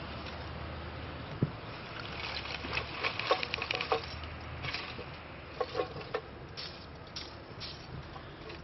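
Lumps of charcoal clattering as they are tipped from a metal bucket into the top of a bloomery furnace, in a few short runs of clinks and knocks, the busiest a few seconds in.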